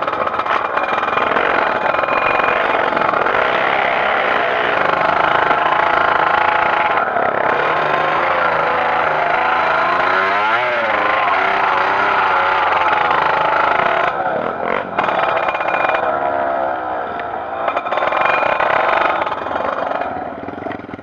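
Trail dirt bike engine revving hard under load, its pitch swinging up and down, with a sharp rise and fall about ten seconds in. It eases off near the end.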